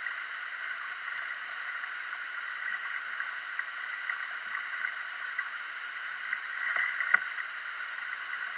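Flowing river water making a steady rushing hiss. About seven seconds in there are two short knocks.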